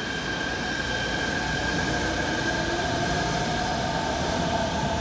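Chiba Urban Monorail 0 series suspended monorail car moving past, its Mitsubishi IGBT VVVF inverter giving a steady high whine over the running rumble. Lower tones rise slowly in pitch in the second half as the car gathers speed.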